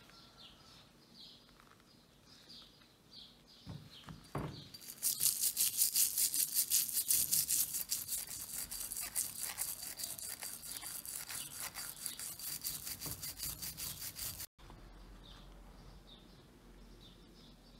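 A brush scrubbing the wet surface of a bronze mortar in fast back-and-forth strokes, several a second. The strokes start about five seconds in and cut off suddenly about three seconds before the end.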